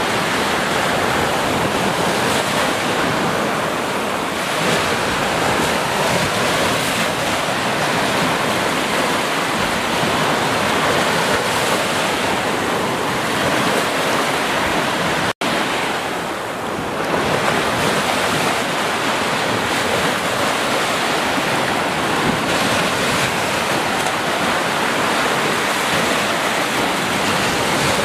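Ocean surf washing onto a beach: a steady rush of breaking waves and spreading foam that swells and eases gently, with a split-second dropout about halfway through.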